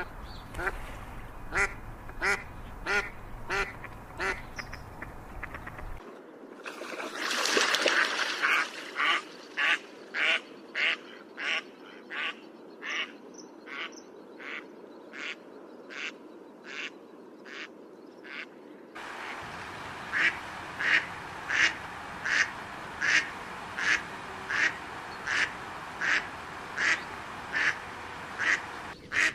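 Ducks calling in a long run of short, evenly spaced calls, about two a second. The background changes abruptly twice, about six seconds in and again about two-thirds of the way through.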